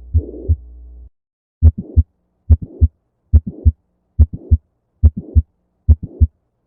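Recorded stethoscope heart sounds. About a second of a mitral regurgitation murmur, a blowing murmur filling the whole of systole between the first and second heart sounds over a low steady hum, cuts off. After a brief gap, a mitral valve prolapse recording begins: six regular beats, each with a mid-systolic click and a short late-systolic murmur.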